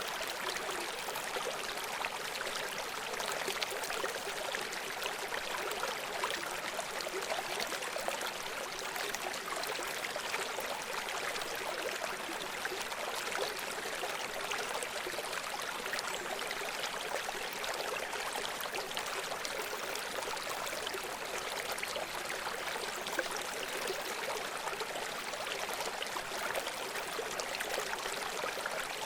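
A river or stream running over rocks: a steady, even rush of water with fine splashing and gurgling, bright and without much deep rumble.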